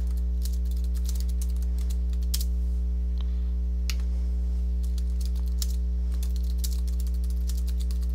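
Computer keyboard typing in short runs of key clicks, over a steady low electrical hum.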